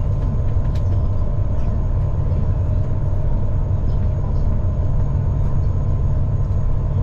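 Steady low drone of a Brødrene Aa 40 m high-speed ferry's engines running at cruising speed, about 32 knots, heard inside the passenger cabin, with a few steady hum tones over it.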